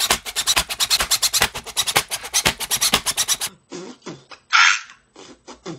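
Cordless impact driver hammering in a fast run of clattering impacts for about three and a half seconds as it works a screw on a carbon-fibre RC car chassis. Then a short, duller-sounding inserted clip with two brief hissing puffs.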